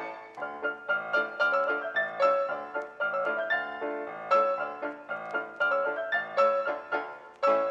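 Background piano music: a quick run of struck notes, with no wind or drone noise heard.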